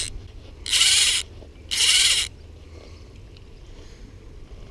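Fly reel's click-and-pawl drag buzzing as line is pulled off the spool in short half-second bursts, twice about a second apart, right after the end of an earlier one.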